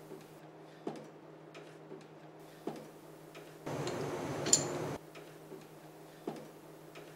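A clock ticking slowly and evenly, with a louder tick about every two seconds, over a faint steady hum. Near the middle there is a brief rush of noise with one sharp click.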